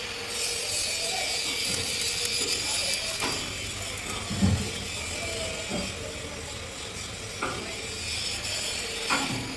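Steady mechanical rattle and hiss of metalworking, broken by a few dull knocks spaced a second or so apart.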